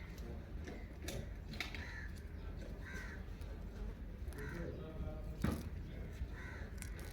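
Indian ringneck parakeet giving several short calls spaced a second or more apart, with a few sharp clicks in between, the loudest click a little after the middle.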